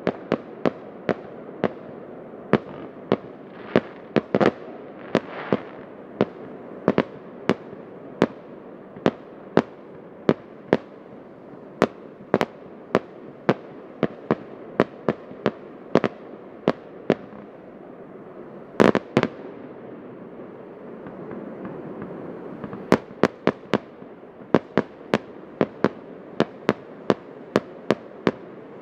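Fireworks display: a steady run of sharp bangs from bursting shells, about one or two a second, over a continuous background rumble. A pair of louder bangs comes about nineteen seconds in, followed by a short lull before the bangs pick up again.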